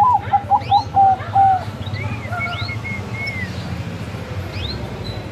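Zebra dove (perkutut, Bangkok type) cooing one song phrase: an opening note, then a quick run of short notes and a longer closing note, in the first second and a half. Other birds give higher arched whistles and chirps behind it, over a low steady hum.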